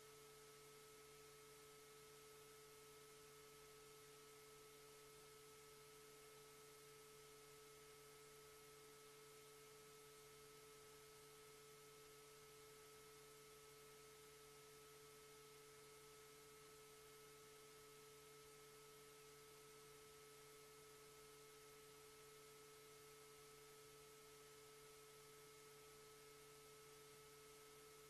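Near silence: a faint, steady electronic hum, a held mid-pitched tone with a few fainter higher and lower tones over hiss.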